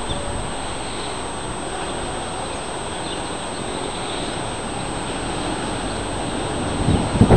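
Strong gusty wind blowing, a steady rush with a loud low gust buffeting the microphone near the end.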